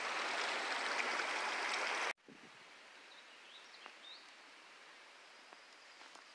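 A small creek running steadily, cutting off abruptly about two seconds in. After that, quiet open-air background with a few faint short bird chirps.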